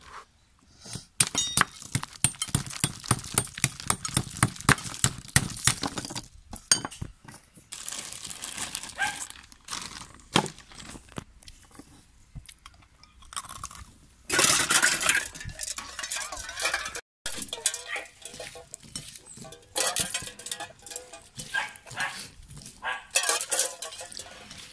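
Ice cubes in a plastic bag being pounded with a kitchen knife on a cutting board: a run of quick, sharp knocks, about three a second, for several seconds. Later come irregular knocks and clinks of ice pieces against a stainless steel cup.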